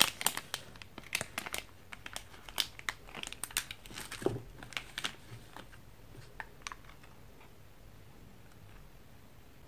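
Plastic candy wrapper and clear plastic blister tray of Sonomanma chewing gum crinkling and crackling in the hands. The sharp crackles thin out after about five seconds and stop around seven seconds in, leaving quiet room tone.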